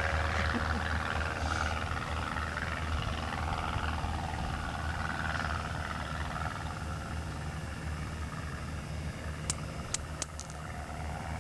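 Distant Cessna 150 light airplane, its four-cylinder engine and propeller droning and slowly fading as it climbs away after takeoff. A few sharp clicks sound near the end.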